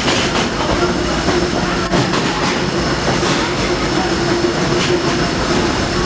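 Disneyland Railroad steam train heard from aboard a passenger car: a steady rumble and clatter of the wheels running on the track, with a faint steady whine above it.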